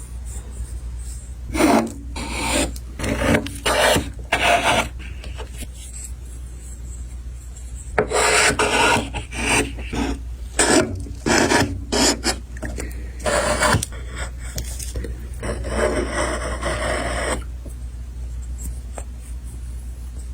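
Wood being worked by hand in repeated gritty rasping strokes: short strokes in bunches, then one longer continuous stretch of about three seconds, over a steady low hum.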